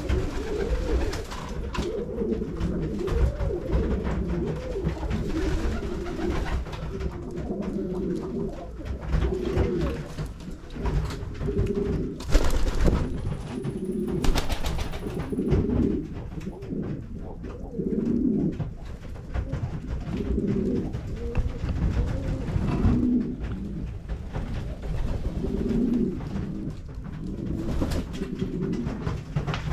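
A flock of domestic pigeons cooing continuously, the calls overlapping and pulsing, with two short rushes of noise around the middle.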